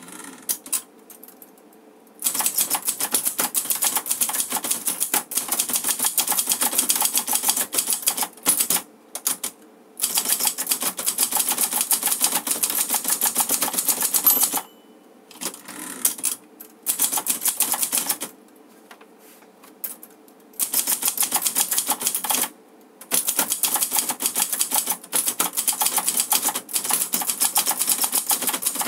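Clover 747TF Hangul portable typewriter being typed on fast: a rapid clatter of typebar strikes, broken by several short pauses. It starts with a few light clicks, and the typing proper begins about two seconds in.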